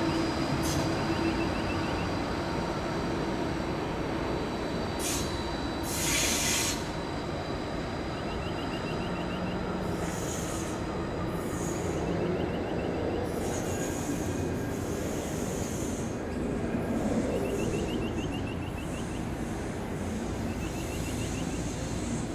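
Gold Coast G:link light-rail tram (Bombardier Flexity 2) running slowly through a curve, with a steady rumble and motor hum. The wheels squeal high-pitched on the curved rail about ten seconds in and again around fourteen to sixteen seconds, and there is a short burst of hiss about six seconds in.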